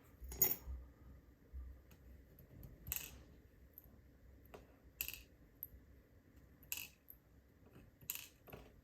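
Small metal parts of a disassembled padlock clicking against a hard surface as they are handled and set down one at a time: five sharp, light metallic clicks, one every couple of seconds.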